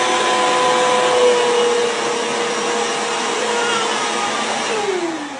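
Vacuum cleaner running steadily with a hissing airflow and motor whine. Near the end it is switched off, and the whine falls in pitch as the motor spins down.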